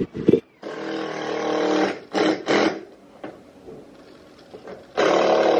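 Handheld power drill whirring in several bursts, the longest about a second, with two short bursts after it and another near the end, backing out fasteners under the car's side skirt.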